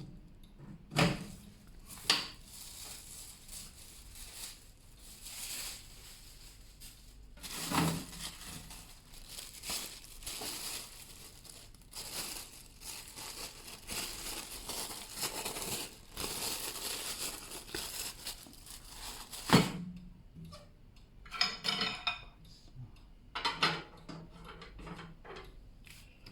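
Packaging being handled while a new microwave is unpacked: plastic rustling and crinkling for several seconds, with a few knocks, then separate clinks and knocks near the end.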